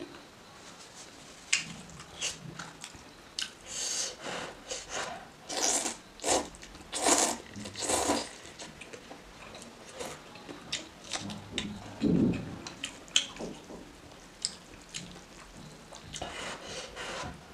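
Close-up eating sounds: noodles slurped up in several short, noisy pulls, with chewing and wet mouth clicks and smacks in between.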